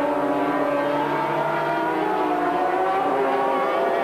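Racing sidecar outfits' 500 cc two-stroke engines running at high revs together, several engine notes overlapping in a steady sound whose pitch sinks slowly.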